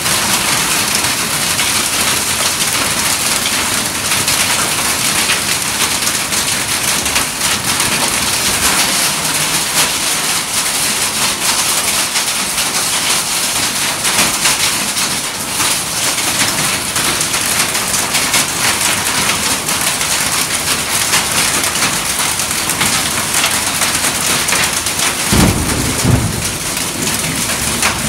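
Heavy rain pouring down steadily in a thunderstorm, with a brief low rumble a few seconds before the end.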